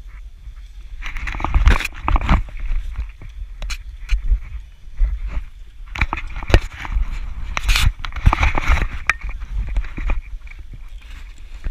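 Snowboard scraping and crunching over snow in two long spells, with sharp clicks, over a low rumble.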